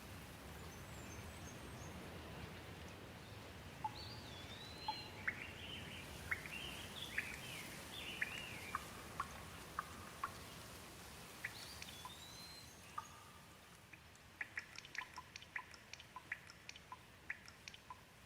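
Light rain falling as a faint steady hiss that fades toward the end, with birds chirping in a run of short rising and falling calls from about four seconds in. A quick series of short drip-like ticks follows near the end.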